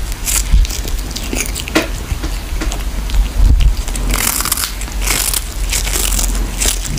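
A kitten gnawing and biting into a small fish, with irregular crunches over a steady low hum.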